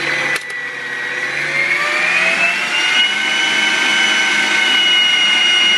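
Bodum Bistro electric stand mixer's 700-watt motor running with an empty bowl: a pretty noisy, high-pitched whine that climbs in pitch from about a second and a half to three seconds in as the speed dial is turned up, then holds steady. A brief click and dip in level about half a second in.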